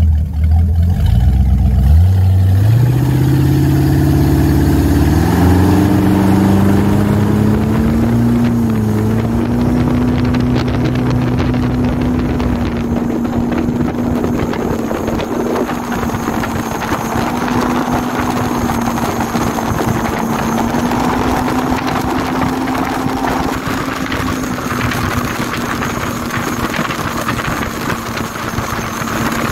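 Phantom 21 powerboat's V8 inboard engine accelerating, its note climbing in pitch over the first several seconds, then holding a steady high-rpm drone at speed.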